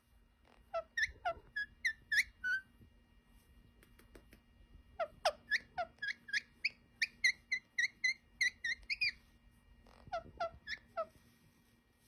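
Indian ringneck parrot chirping: quick runs of short, high, rising squeaks, about three a second. There are three runs: one near the start, a longer one through the middle, and a short one near the end.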